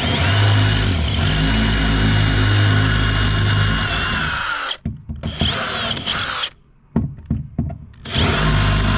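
Power drill drilling out a mounting plate: it spins up and runs steadily for about four and a half seconds, stops, gives a couple of short trigger bursts and a few clicks, then runs again near the end.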